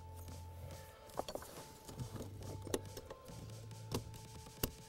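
Soft background music with a few sharp clicks and rattles of plastic wiring-harness connectors being handled and plugged in at the throttle pedal.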